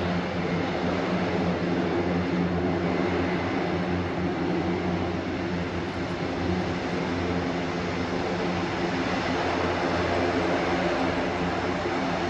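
Airbus A400M's four turboprop engines running steadily: a constant propeller-aircraft drone with a low, even hum under a broad rushing noise.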